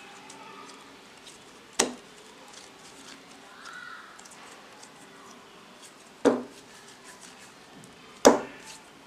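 Three soft thuds a few seconds apart as balls of kneaded maida dough are dropped one by one into an oiled bowl, with faint handling clicks between them.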